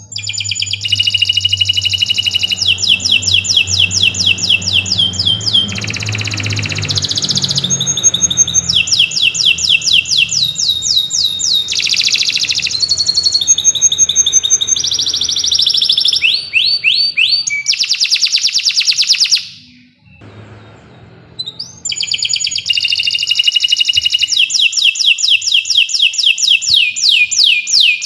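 Domestic canary singing a long, loud song of fast repeated trills and rolling phrases. It breaks off briefly about twenty seconds in, then starts again.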